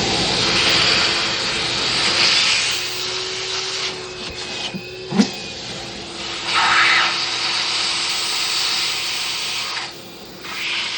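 Vacuum cleaner running loud, sucking metal debris from a freshly tapped bolt hole in an aluminium cylinder head. The suction hiss swells and dips as the nozzle moves, with a sharp click about five seconds in, and drops away near the end.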